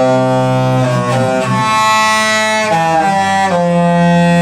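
Instrumental music of long held chords, shifting to a new chord about every second.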